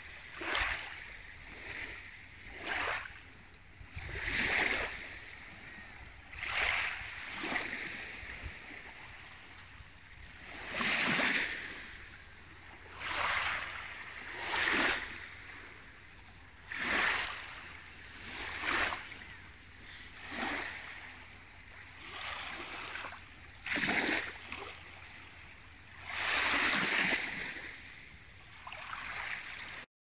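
Small waves washing against the shore in repeated short surges, one every second or two, over a steady hiss of water.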